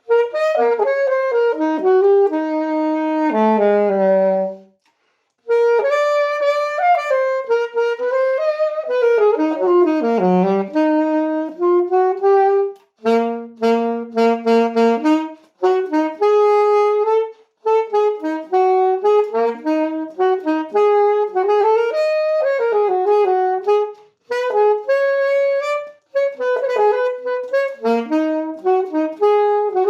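A solo woodwind instrument, unaccompanied, playing a melody in phrases of quick runs and held notes, with short pauses between phrases.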